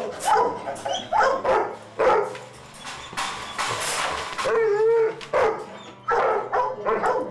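Labrador retriever barking repeatedly in short bursts, with one longer, wavering cry about four and a half seconds in.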